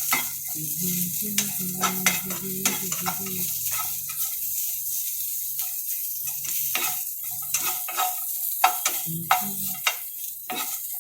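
Onions and cashews frying in hot oil in a pan, sizzling steadily while being stirred, with frequent quick scrapes and knocks against the pan.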